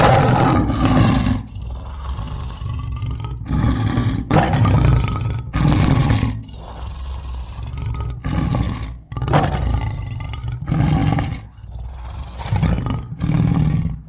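Lion roaring: a string of about ten loud, deep calls, each about a second long, with short, quieter gaps between.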